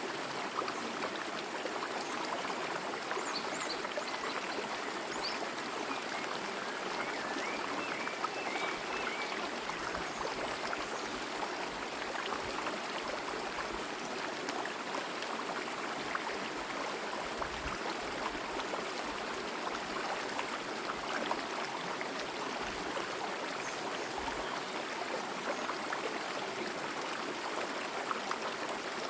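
Forest stream running steadily over rocks, with a few faint high chirps from a small bird early on.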